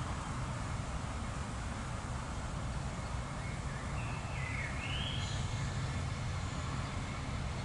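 Steady low outdoor rumble, with a brief bird call of a few notes that glide in pitch about four to five seconds in.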